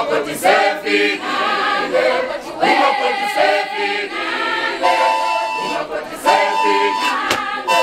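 A group of young women singing a traditional Zulu song together. A steady high note is held three times in the second half.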